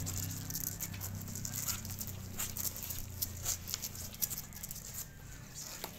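Two-week-old puppies suckling at their mother, a quick irregular patter of wet sucking and smacking clicks. A low steady hum underneath fades over the first few seconds.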